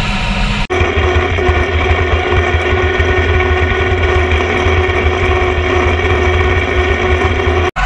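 International 1086 tractor's diesel engine and the spinning cutter discs of a New Holland 7450 disc mower-conditioner running steadily while cutting standing hay, with a strong low drone and a steady tone over it. The sound changes abruptly under a second in and cuts out for an instant near the end.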